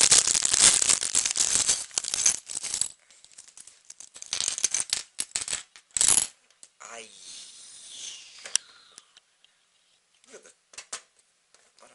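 Plastic packaging crinkling for about three seconds, then small plastic Lego pieces clicking and clattering as they are spilled and spread onto a table, with the loudest clatter about six seconds in.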